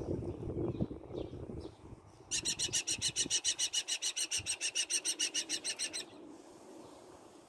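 New Zealand falcon giving its rapid, high kek-kek-kek chatter, about ten sharp calls a second for nearly four seconds, starting about two seconds in. Before it, a low rumbling noise.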